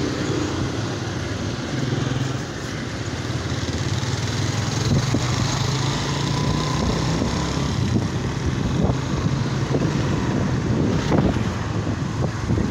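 Motorcycle engine running steadily while riding through city traffic, with wind noise on the microphone.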